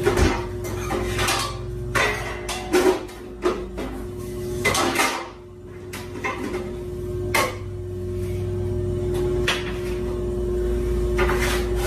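Metal baking pans clattering and knocking as they are pulled out of the storage drawer under an oven, a string of separate clanks of varying loudness. A steady hum runs underneath.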